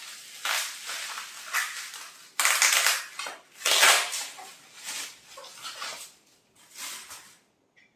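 Plastic bubble wrap crinkling and rustling in irregular bursts as a bottle is unwrapped by hand, loudest about a third and halfway through, then dying away.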